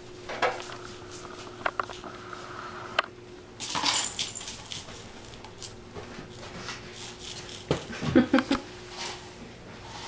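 Kittens playing with hard plastic toys on a tile floor: scattered clicks and rattles, with a longer clatter about four seconds in and a quick run of knocks about eight seconds in.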